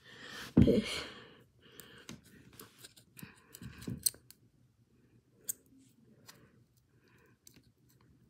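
A thump about half a second in, then scattered light scratching rasps and small clicks from a pin being pushed through a fingerboard's grip tape to punch the truck holes.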